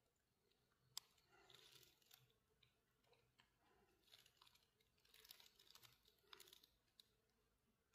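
Near silence with faint, scattered rustling of dry leaves and a gloved hand handling a plant, and a sharp light click about a second in.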